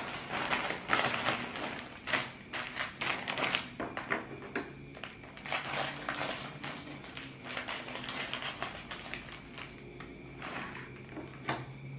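Plastic snack packets crinkling and rustling in irregular crackles as one is pulled from a large plastic bag and snipped open with scissors.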